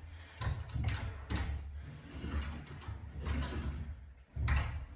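Bifold closet door being set onto its track: a string of irregular knocks and low rumbles as the panel is lifted, fitted and moved in the track, the loudest knock near the end.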